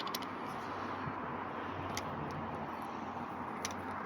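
Steady outdoor background noise with a low hum, broken by three faint short clicks.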